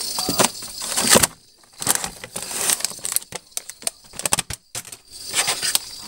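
Food packaging being handled close to the microphone: irregular crinkling, crackling and knocking of plastic packs and tubs, with a brief lull after about a second and a louder burst of rustling near the end.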